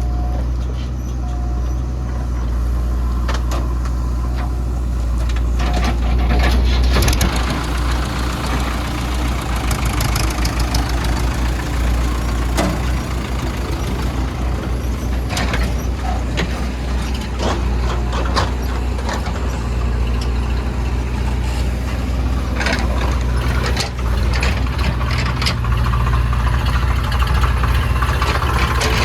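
Heavy diesel engine of a JCB 3DX backhoe loader running under load while digging and loading mud, with scattered knocks and clatter from the bucket and the soil. The engine picks up about seven seconds in.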